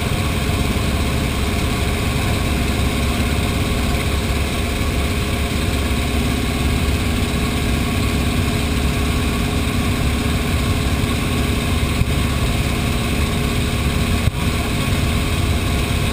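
An-2 biplane's nine-cylinder radial engine droning steadily, heard from inside the cabin, with air rushing past the open jump door.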